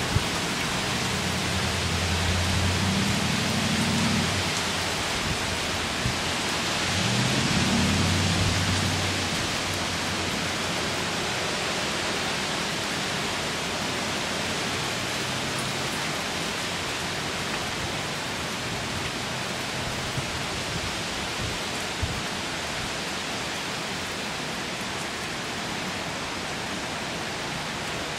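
Steady rain from a hurricane rainstorm, an even hiss. A low rumble swells twice in the first ten seconds.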